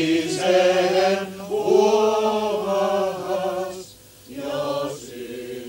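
A group of voices singing a Lutheran children's hymn in Finnish, in long held notes, breaking off briefly about four seconds in before another phrase.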